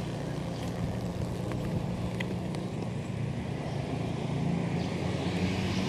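Urban road traffic: a steady low engine hum with a vehicle passing, growing louder near the end.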